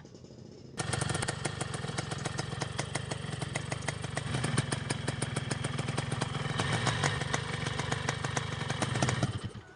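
Yamaha RX Cobra's two-stroke single-cylinder engine running steadily at idle with a rapid ticking beat. It comes in abruptly about a second in and drops away near the end.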